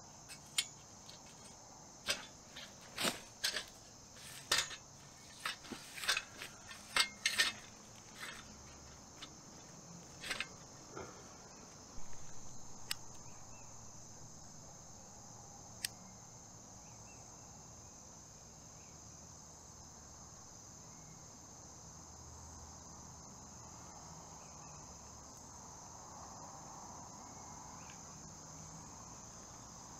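Steady high chorus of crickets. Over it, in the first dozen seconds, a string of sharp clicks and knocks as a homemade metal firebox stove is handled and set up. A short rush of noise about twelve seconds in dies away over a couple of seconds.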